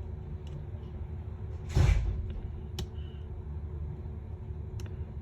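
A steady low background rumble, with one short thump about two seconds in and a few light clicks after it, from parts and tools being handled on a work surface.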